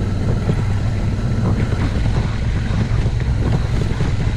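Suzuki V-Strom motorcycle engine running steadily on the move along a dirt road, with wind noise on the microphone.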